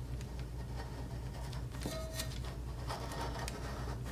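Single-edge razor blade in a tumbler edging tool faintly scraping through fabric as the cup is pressed against it and turned, with light scratchy clicks and a brief squeak about two seconds in, over a steady low hum.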